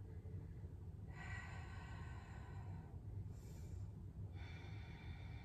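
A woman's breathing during a side-lying leg-circle exercise: two long, soft breaths, the first about a second in and the second about four seconds in, over a steady low room hum.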